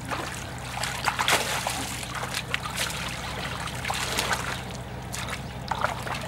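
Water splashing and trickling as a large bamboo fish trap is hauled out of shallow river water, with water running out through its slats and legs wading in the shallows. A steady low hum runs underneath.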